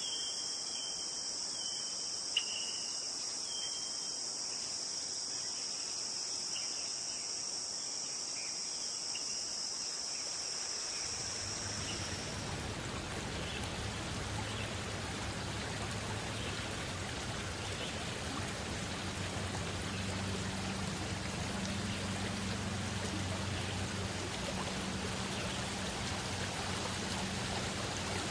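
Insects trilling steadily at a high pitch, with a few short chirps, until about twelve seconds in. The sound then changes to the steady rush of flowing water.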